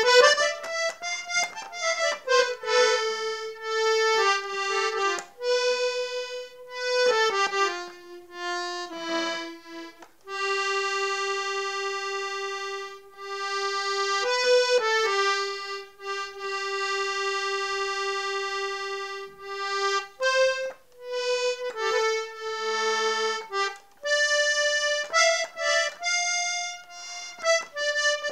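Accordion played solo: a slow melody of single reedy notes, several held for about four seconds, with no bass notes under it.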